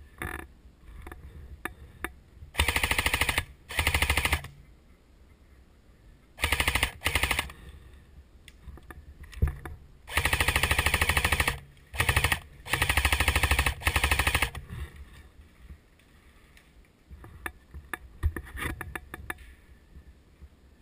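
Airsoft rifle firing about seven full-auto bursts of rapid shots, the longest near the middle, with short pauses between them. Faint scattered clicks and knocks sound before and after the bursts.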